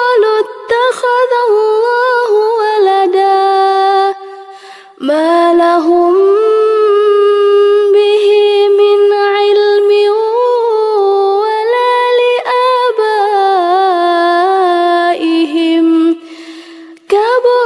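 A woman reciting the Qur'an in a slow, melodic chant, holding long notes with gliding ornaments. She breaks off twice, about four seconds in and near the end, each time picking up again on a rising note.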